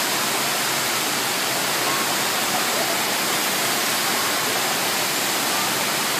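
Steady rush of water pumped up the slope of a FlowRider sheet-wave surf simulator.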